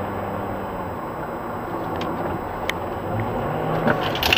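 Engine hum and road noise of a moving car, heard from inside the car. A few sharp clicks come near the end.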